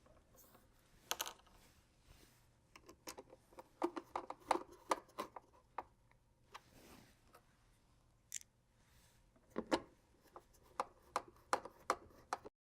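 Irregular short clicks and taps of plastite screws and plastic parts being handled and fitted into the bottom of a plastic tackle crate.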